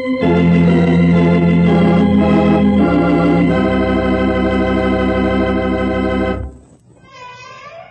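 Organ music: loud sustained chords that change a few times, then cut off about six and a half seconds in. A fainter wavering sound starts just before the end.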